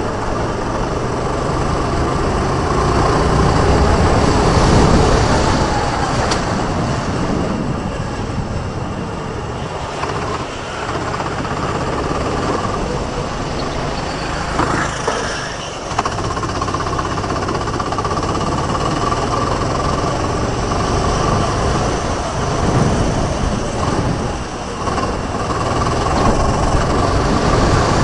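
Sodi rental go-kart engine running hard, heard from on board with wind and track noise. Its note falls and climbs back a few times as the kart slows for corners and speeds up again.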